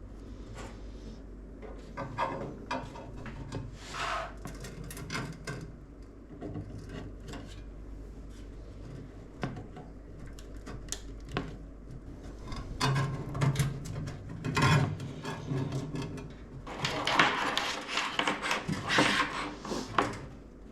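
Hands working on a PC build: repeated clicks, knocks and scraping of parts, cables and case panels being handled, with a busier stretch of rubbing and rattling near the end.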